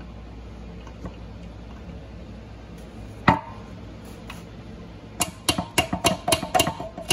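Hammer striking a steel screwdriver shaft to drive a stuck clutch pivot pin out of a transmission bellhousing: one sharp knock about three seconds in, then a quick run of blows, about three or four a second, each with a short metallic ring, starting about five seconds in.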